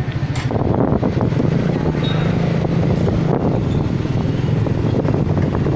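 Motorcycle engine running steadily at low speed, heard close up from the rider's seat.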